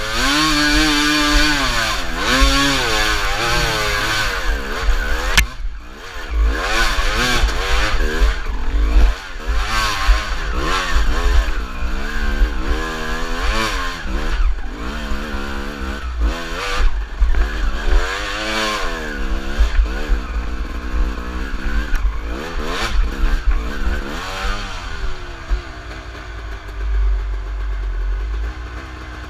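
Dirt bike engine revving up and down over and over as it climbs a steep rocky trail, with knocks and clatter mixed in and wind rumbling on the microphone. About 25 seconds in it drops to a quieter, lower running.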